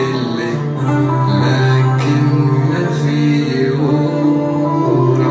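A man singing an Arabic song, holding long notes, over an instrumental music backing.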